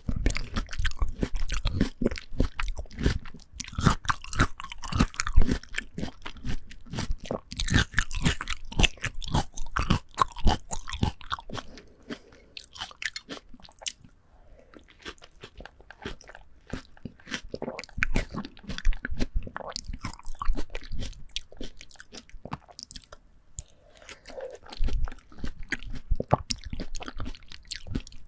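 Chewing and biting of ripe, juicy melon, with a rapid, irregular wet crunching; it goes quieter for a few seconds in the middle, then picks up again.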